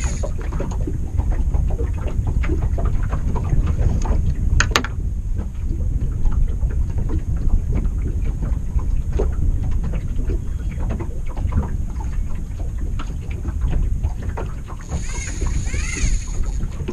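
Wind buffeting the microphone in a small open boat, a dense, uneven low rumble, with water lapping at the hull and scattered light taps and clicks; one sharper click about five seconds in.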